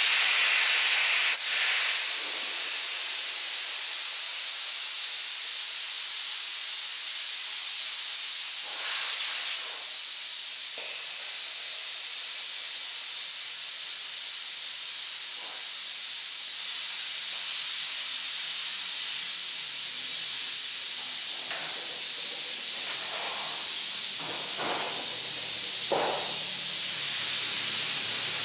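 Compressed air hissing steadily from a pneumatic ball-vulcanizing press, with a few faint knocks in the second half as the molds are handled.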